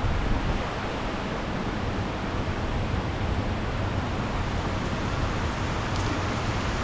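Steady rushing of water pouring over a river dam, an even roar with no let-up.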